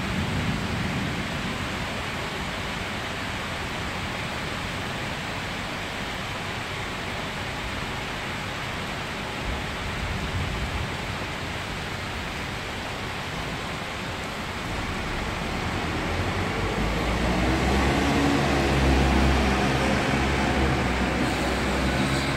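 Steady rain hissing on a city street. Past the middle, a vehicle's engine hum grows louder as it passes below.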